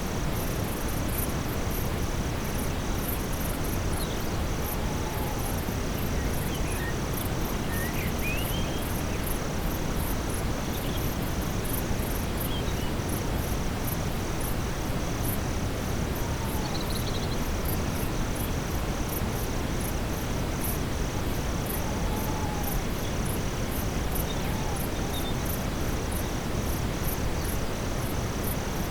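Steady brown noise under a nightfall forest ambience: crickets chirping in an even, fast pulse over high insect trills, with a few faint short bird calls here and there.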